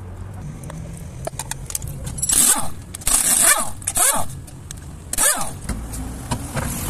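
Pneumatic impact wrench running in about four short bursts, each spinning up in pitch, as it loosens the lug nuts on a car wheel.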